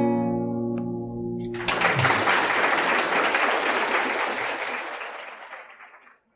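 The song's last guitar chord rings and dies away, then an audience breaks into applause about a second and a half in, which fades out near the end.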